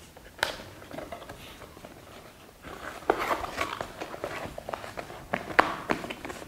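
Cardboard product box being handled and its top flap opened: a single tap about half a second in, then a run of cardboard and paper rustling with sharp snaps, loudest shortly before the end.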